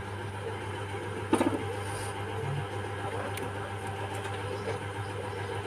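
A steady low machine hum, with a short rattling knock about a second in.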